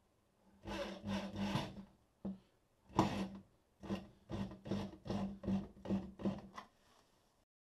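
Corded power tool run in repeated short bursts against the underside of the sink: two longer runs early on, then quick bursts about two or three a second, and the sound cuts off abruptly near the end.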